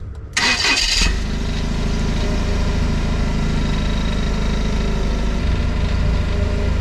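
Toyota forklift engine started about half a second in, with a short burst of noise as it catches, then running steadily at idle.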